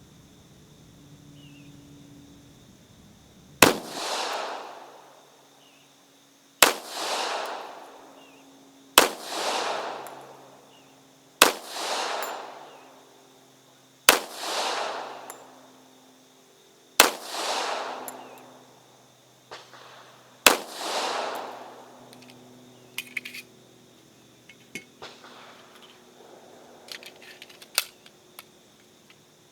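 Seven slow, single shots from an M1911A1 .45 ACP pistol firing Remington ammunition, spaced about three seconds apart, each followed by a long echo. A few light clicks follow near the end.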